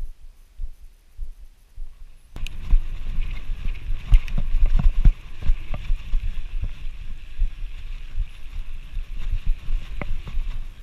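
Fat bike riding over sand: loud, uneven rumble with many knocks as the bike jolts along, and wind buffeting the handlebar-mounted action camera's microphone. Quieter for about the first two seconds, then suddenly much louder.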